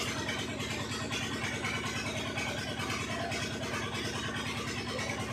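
An engine idling steadily with a fast, even beat.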